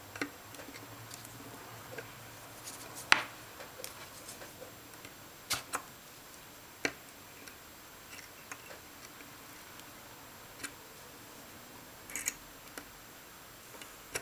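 Scattered small clicks and taps from a circuit board and soldering iron being handled while pins are soldered, the sharpest about three seconds in, over a faint steady hiss.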